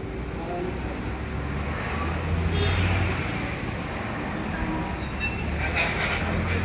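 A vehicle engine running with a steady low rumble that swells a little about two to three seconds in.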